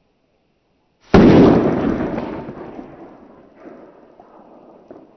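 A single pistol shot: a .380 ACP Federal Hydra-Shok round fired from a Ruger LCP with a 2-inch barrel. The sharp report comes about a second in and rolls away over about two seconds.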